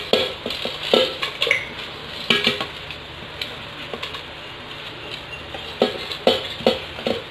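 A plate knocking and scraping against the rim of a steel pressure cooker as spices and chopped vegetables are brushed off it by hand, giving a few sharp, irregular clinks with light pattering of seeds into the water.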